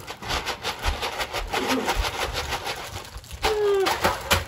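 Crinkling and rustling of gift wrap and stocking contents being handled. About three and a half seconds in comes a brief sound that falls in pitch, and near the end a sharp click.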